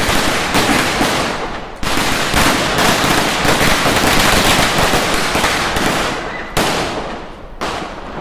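A long string of firecrackers going off in rapid, dense crackling pops, with a fresh loud burst about two seconds in and a few more separate bangs near the end.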